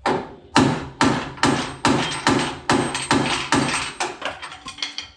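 Hammer blows on the Jeep's steel body panel, about two strikes a second with a short metallic ring, coming quicker and lighter near the end: knocking a wavy dent in the sheet metal flat.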